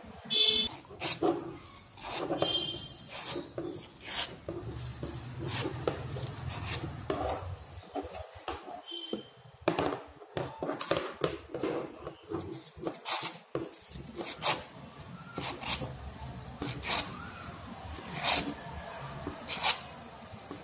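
Sheets of craft paper being handled and rolled in the hands: repeated short crackling rustles and rubs of paper against paper and the tabletop.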